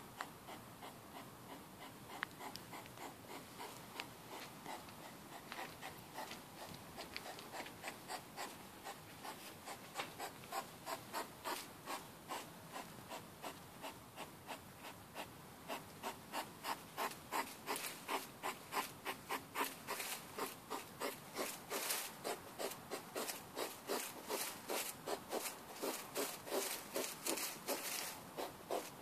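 European hedgehogs grunting: a fast, rhythmic train of short breathy puffs, about three a second, faint at first and growing louder and steadier through the second half. This huffing grunt is typical of a male hedgehog courting a female as he follows her.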